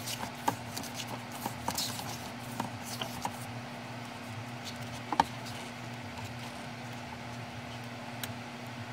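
Pages of a photo book being turned by hand: light paper ticks and flicks, several in the first few seconds and a sharper one about five seconds in, over a steady low background hum.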